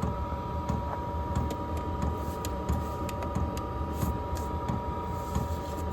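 Diesel air heater running: a steady low combustion rumble under the constant whine of its blower fan, with faint scattered ticks.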